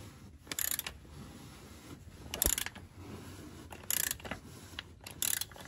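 Socket ratchet clicking in a few short bursts, about a second apart, as it turns a cap-style filter wrench to loosen the old oil filter on a Chevy Tahoe's 5.3-litre V8.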